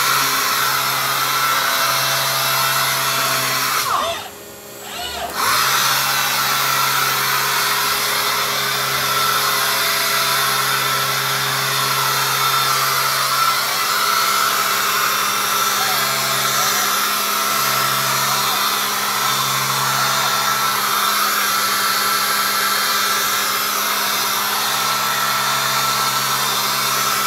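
Robotic orbital sander on a Yaskawa arm sanding a cabinet door at high speed, with its dust extraction running: a steady whirring noise with a high whine. It cuts out briefly about four seconds in, then starts again.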